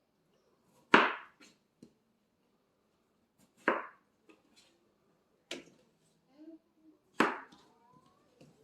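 Kitchen knife cutting through canary melon and striking the cutting board: four sharp chops spaced about two seconds apart, with a few lighter knocks between them.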